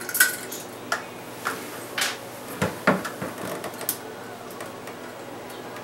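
Scattered small clicks, scrapes and rustles of hands twisting plastic wire nuts off the wire splices of a ceiling light fixture and handling the wires, about eight short sounds in the first four seconds, the loudest near three seconds in, then only a faint steady hum.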